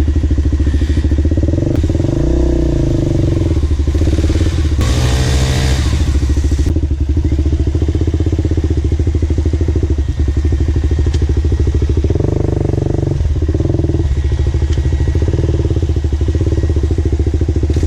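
Dirt bike engine running while riding, rising in pitch as it revs a couple of times, with a short rush of noise about five seconds in.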